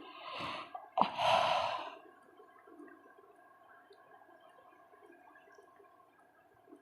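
A woman yawning: a breathy sound, then a louder breathy one that starts abruptly about a second in and lasts about a second.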